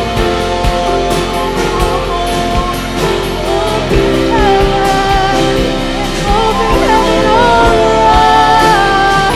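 Live worship band playing a song: electric and acoustic guitars, bass, keyboard and drum kit, with a sung melody of long held notes that grows stronger from about four seconds in.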